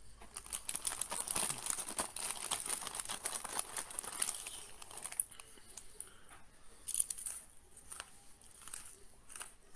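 Crinkling and crackling of a food wrapper being handled and torn open, dense for about the first five seconds, then a few scattered crackles.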